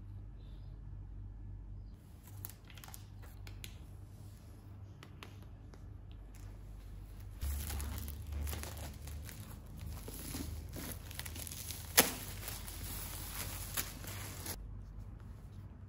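Clear plastic shrink wrap being pulled off a laptop box and crumpled in the hand: light crackles at first, then dense crinkling from about halfway, with one sharp snap of the plastic near the end before it stops.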